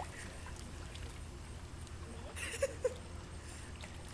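Pool water splashing and sloshing briefly about two and a half seconds in as a swimmer comes up from an attempted backflip, with two short sharp sounds right after, over a steady low hum.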